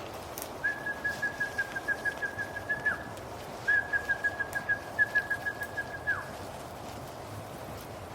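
Two long warbling whistles on one steady pitch, each trailing off with a drop in pitch at the end: a hunter whistling to urge the rabbit dogs on.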